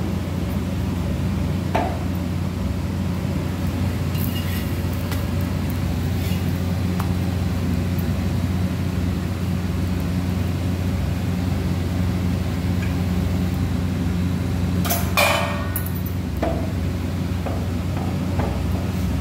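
Steady low motor hum, with a few light knocks and one brief clatter of kitchen utensils about fifteen seconds in.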